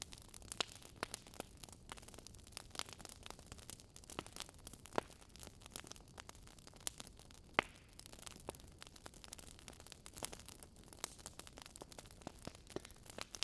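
Wood fire burning in a fireplace: soft hiss of the flames with irregular crackles and sharp pops from the burning logs, the loudest pop about seven and a half seconds in.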